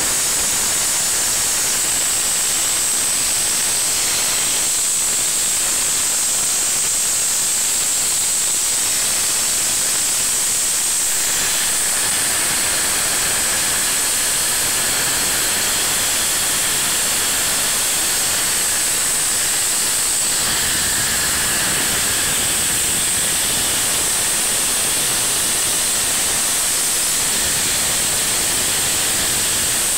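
Peppercorn A1 Pacific steam locomotive 60163 Tornado standing with steam hissing out around its front in one loud, unbroken hiss.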